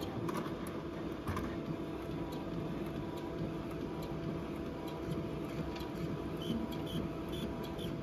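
Roll-fed label printer running as a printed sticker roll feeds through. It makes a steady hum with a couple of constant tones, and a few faint clicks come near the end.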